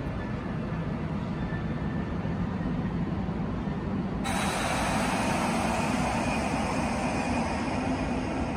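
Steady low rumble of railway station ambience under a large train shed, with a broad hiss that cuts in suddenly about four seconds in and holds steady.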